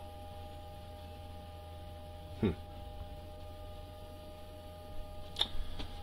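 Small circulation pump running a newly filled hot water loop with a steady low hum and a faint whine, while air is still being worked out of the lines. About halfway through there is a short falling blip, and a light tick comes near the end.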